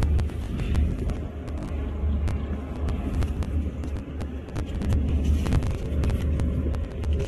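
A steady low rumble with many small sharp clicks scattered over it.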